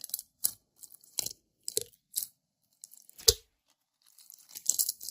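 Slime being squeezed and pressed by hand: a string of short crackling, squelching pops about every half second, the loudest a little past three seconds in, growing denser near the end.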